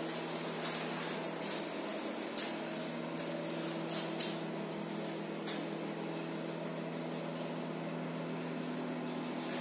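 A steady machine hum with several short hissing bursts in the first half.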